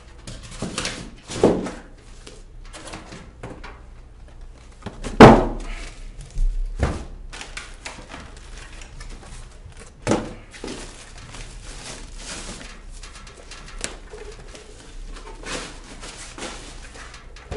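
Unpacking noises: a plastic bag rustling and crinkling as a small receipt printer is unwrapped and handled, with several sharp thunks of it and its packing being knocked and set down; the loudest thunk comes about five seconds in.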